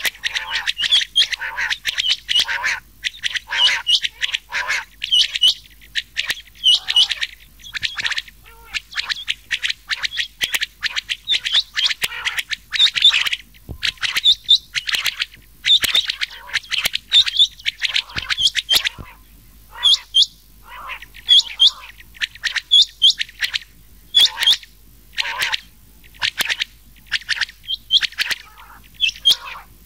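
Recorded quail calls, rain quail mixed with another quail: short, sharp chirping notes repeated quickly in runs, with brief gaps between the runs.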